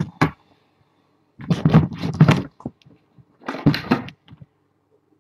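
Handling noise close to the microphone: two short bouts of rustling and bumping as things are moved about.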